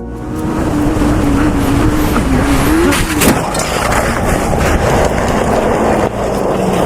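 Motorcycle running at speed, with heavy wind rush over the engine note; about three seconds in the engine revs up briefly, with a sharp crack at the same moment.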